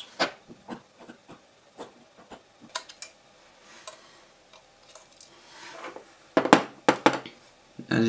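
Handling noise from an iPod's metal back case and small repair tools on a tabletop: scattered light clicks, taps and a brief rub, with a few sharper clacks about six and a half seconds in.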